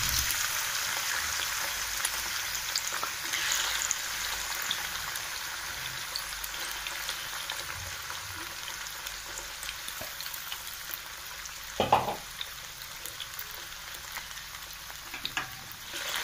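Potato pieces frying in sunflower oil in a non-stick pan: a steady sizzle that slowly grows quieter. A single sharp knock about twelve seconds in, and a few light clicks and scrapes near the end as a wooden spatula stirs the potatoes.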